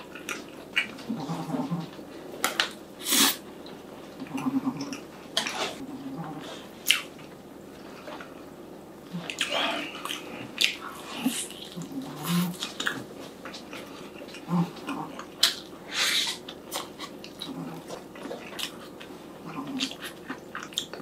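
Close-miked eating of a glazed fried chicken thigh: bites, wet chewing and lip smacks in irregular sharp clicks, with a few short low hums from the eater.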